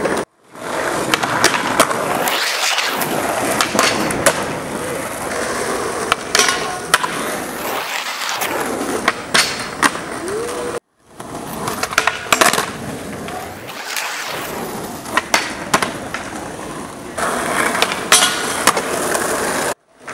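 Skateboard wheels rolling on asphalt, with sharp clacks of tail pops, landings and the board meeting a low flat rail, over several separate takes.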